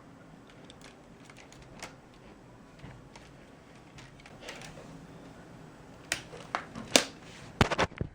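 Light plastic clicks and rattles of a Lego rubber-band rifle being handled, then several sharp, loud clacks in the last two seconds.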